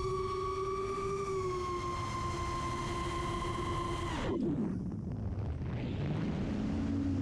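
FPV quadcopter's DYS 2205 2300KV brushless motors and propellers whining steadily at high throttle. About four seconds in the pitch drops sharply as the throttle is cut for a dive, leaving a lower motor hum under wind noise.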